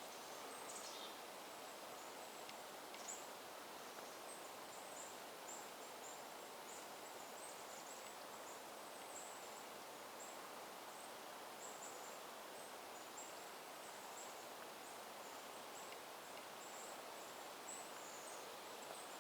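Faint outdoor ambience: a steady low hiss with many short, faint high-pitched chirps scattered throughout.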